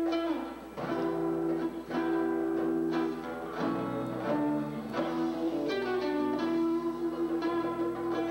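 Live band music for belly dance: a plucked string instrument plays a melody line of struck, ringing notes over other held instrument tones.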